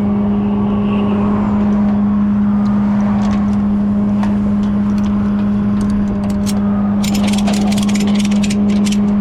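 Tow truck engine idling with a steady low drone; about seven seconds in, a rapid run of sharp clicks starts over it.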